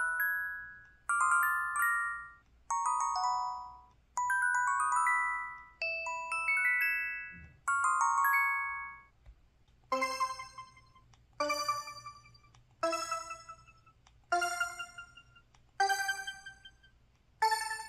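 Synthesized system alert tones from an LG KP4400 Cyon phone's Yamaha YMU783B-W 64-voice sound chip. Short chiming note-runs, each about a second long, play one after another. From about ten seconds in, a bell-like struck tone rings out and fades, repeating about every second and a half.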